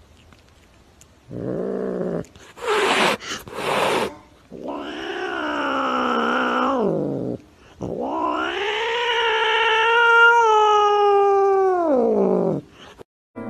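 Cat yowling: a short call and a few short breathy bursts, then two long drawn-out yowls that each rise, hold and fall away, the second longer and louder.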